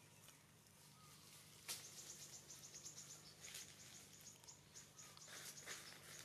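Faint insect chirping: a rapid run of short high-pitched pulses that starts after a single sharp click about two seconds in, with scattered light clicks.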